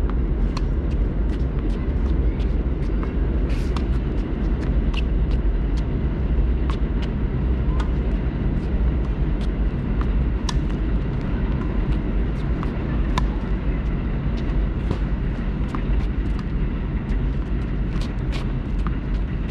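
Tennis balls struck back and forth with racquets in a rally, sharp pops every second or two, over a steady low rumble.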